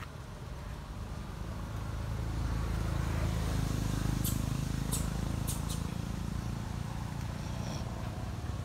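Low rumble of a motor vehicle passing, swelling to a peak about four seconds in and slowly fading, with a few sharp clicks in the middle.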